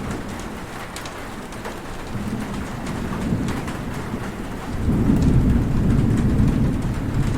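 Heavy rain falling steadily with scattered drop ticks, and a low rumble of thunder that swells about two seconds in and grows loud past the middle.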